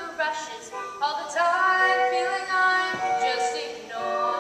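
A woman singing a slow melody with musical accompaniment, holding each note for about a second before moving to the next.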